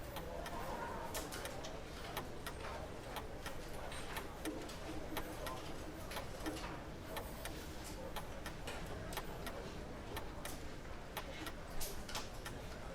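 Café terrace ambience: a low murmur of voices under many irregular, sharp little clicks and clinks.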